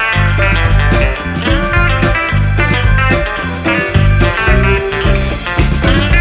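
Background music: a guitar-led track with electric guitar over bass and a steady beat.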